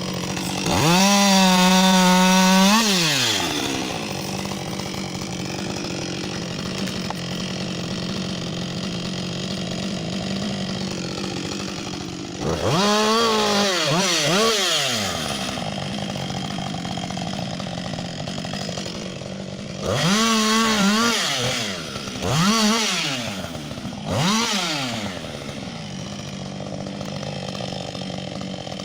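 Gasoline chainsaw revving to full throttle in several bursts, a long one near the start and shorter ones later, each falling back to a steady idle between them, as it bucks a frozen log into rounds.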